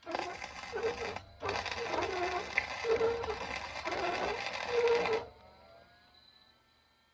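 Flux-core wire-feed welder arc crackling in two welds: a short one of about a second, then after a brief break a longer one of about four seconds, each starting and stopping abruptly.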